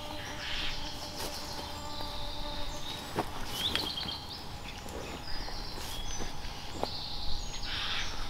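Woodland ambience: birds chirping and whistling, over a faint steady hum. A few sharp clicks and rustles come from clothing and backpack gear being handled.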